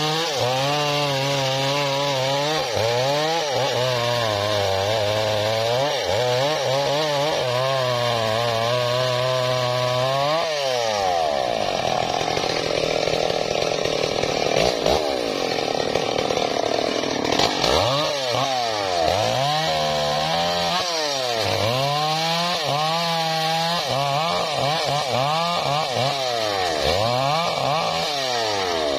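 STIHL MS381 two-stroke chainsaw cutting a tree trunk, its engine speed repeatedly dropping as the chain bites and climbing again. About ten seconds in it holds a high, steady speed for several seconds, then goes back to dipping and rising.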